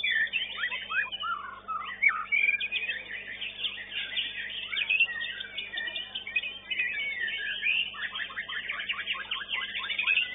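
Caged contest songbird singing a fast, varied song of gliding whistles, trills and rapid chattering notes, almost without a break, with the quickest runs of notes near the end.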